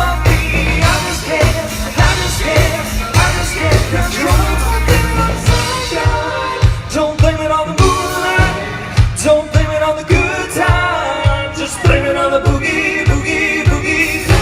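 Live country-pop band playing through a PA during a sound check: sung vocals over a steady kick-drum beat with band backing.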